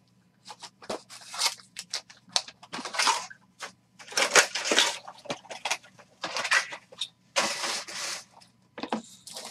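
Trading-card boxes being unwrapped and their foil packs handled: irregular crinkling and tearing of plastic wrap and foil, with a few light knocks of cardboard boxes.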